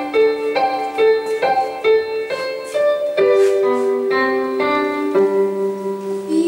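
Piano introduction to a song, played from a backing track: a run of struck notes about two a second over held lower notes, before any singing.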